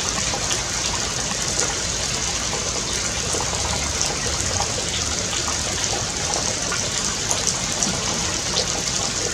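Steady rushing of flowing water, an even hiss with faint high flecks and no breaks.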